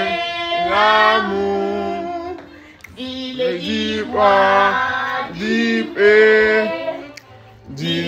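Several voices singing a birthday song in long held notes, with a short break about three seconds in.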